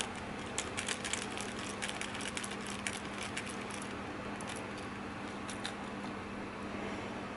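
A micro screwdriver clicking and ticking against a tiny motherboard screw as it is turned out of a camera's chassis, with a run of small irregular clicks that stops about two seconds before the end. A faint steady hum and hiss lie underneath.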